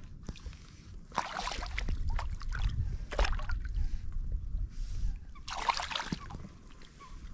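Water splashing in three short bursts, about a second, three seconds and five and a half seconds in, as a small hooked fish is brought in beside a float tube. Low wind rumble on the microphone underneath.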